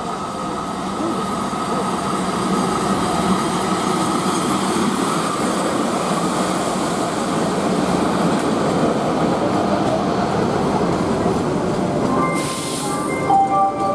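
Passenger coaches of an arriving train rolling past slowly: a steady rumble of wheels on rail with a thin, high wheel squeal. Near the end come short hisses and a few brief tones.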